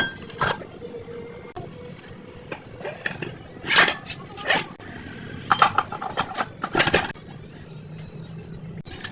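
Irregular sharp knocks and clinks, about eight of them, some ringing briefly, over a steady low background.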